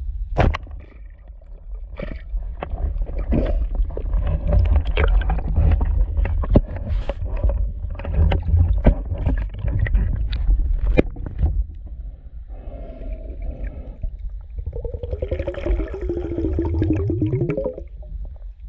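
Underwater sound during a spearfishing dive: a steady low rumble of moving water with a string of sharp clicks and knocks, then a humming tone that dips and rises for a couple of seconds near the end.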